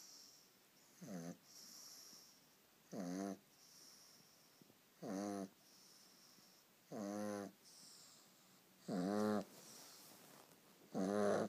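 A pug snoring, one rasping snore about every two seconds, six in all, growing louder and longer toward the end. A soft hissing breath comes between the snores.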